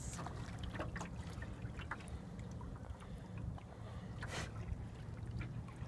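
A small boat moving slowly through calm water: water lapping and trickling along the hull, with a few short splashes, the loudest about four seconds in, over a steady low rumble.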